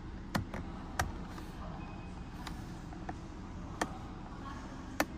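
Sharp clicks of a car's power-mirror adjustment switch on the door armrest being pressed, five in all at uneven intervals, over a low steady hum.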